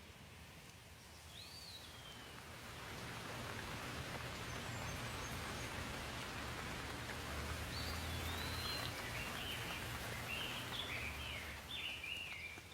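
Steady rain hiss that swells in over the first few seconds, with birds calling over it: one whistled call about a second in, then a quick run of chirps near the end.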